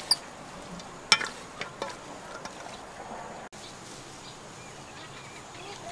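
Several sharp clinks and knocks from mixing salad in a metal bowl, the loudest about a second in. After a sudden break, only a quiet outdoor background with faint chirping remains.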